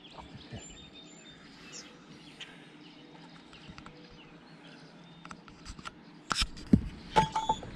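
Faint songbirds chirping and calling around a calm lake shore, short high notes scattered throughout. Near the end, several sharp knocks stand out, much louder than the birds.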